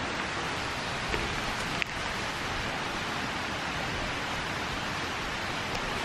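Steady, even rushing of running water, with a couple of faint ticks about one and two seconds in.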